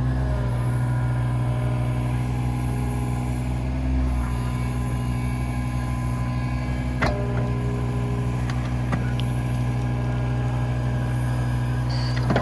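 Hitachi ZX26 mini excavator's diesel engine running at a steady speed, with a sharp knock about seven seconds in and a couple of faint ticks after it.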